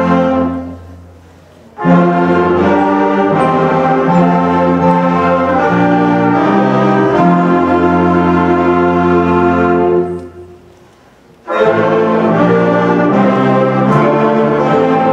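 Concert band of woodwinds and brass playing a slow chorale in held chords. The chords die away twice, about a second in and about ten seconds in, with the hall's reverberation in the short pauses, and each time the band comes back in on the next phrase.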